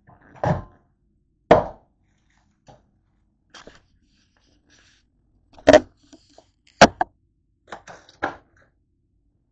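A string of sharp knocks and bumps, about half a dozen loud ones with lighter clicks between, from a camera being handled and set down on a kitchen counter.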